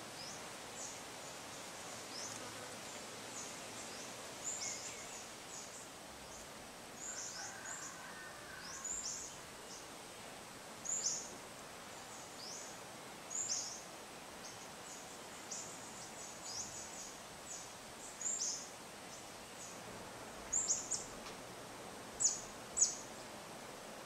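Rural afternoon ambience: a bird giving short, high chirps that fall in pitch, repeated at irregular intervals and loudest near the end, over a steady hiss of insects and light wind.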